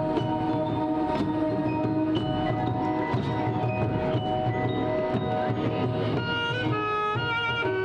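Marching band show music: held chords with sharp percussion hits, then from about six seconds in a pattern of quick mallet-percussion notes stepping up and down.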